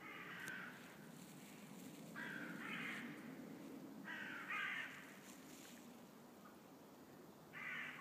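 A crow cawing: four harsh caws about two seconds apart.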